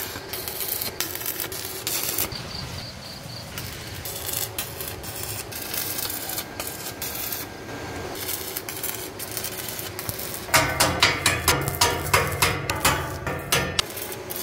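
Hand tools at work on a building job: irregular scraping and light knocks, then from about ten seconds in a quick, regular run of loud strokes, about three a second.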